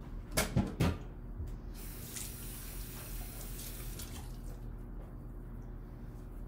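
A few knocks about half a second in, then a kitchen tap running for a couple of seconds and shutting off, as a tea towel is wetted under it.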